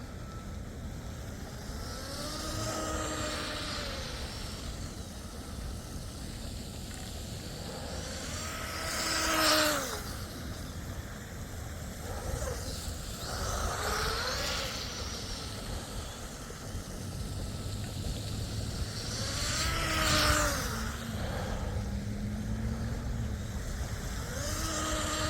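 Electric brushless outboard of a small RC tunnel boat whining across the water in about five runs, each whine rising and then falling in pitch as the throttle is squeezed and let off, loudest about a third of the way in and again past two thirds. A steady low rumble lies underneath.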